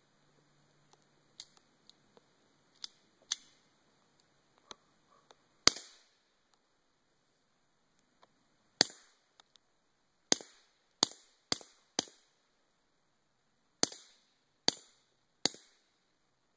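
Sig Sauer Mosquito .22 pistol fired nine times, heard from about 20 feet away: one shot, a pause of about three seconds, then a quick string of shots in irregular groups. A few faint clicks come before the first shot.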